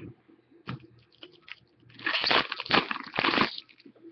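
Trading-card pack wrapper crinkling loudly for about a second and a half in the second half, after a few light clicks and taps from the cards being handled.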